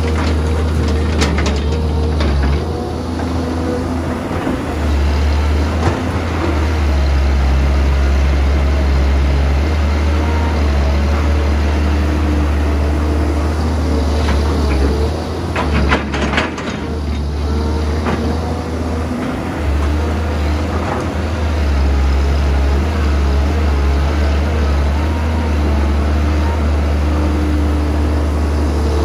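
Caterpillar 320B hydraulic excavator's diesel engine running steadily under load as it digs and swings. Bucketloads of dirt and stones pour into a steel dump truck bed, clattering about a second in and again around the middle.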